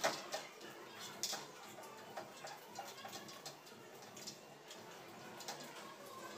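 Hands kneading dough in a large steel bowl: irregular soft taps and clicks, with a sharper knock at the start and another about a second in.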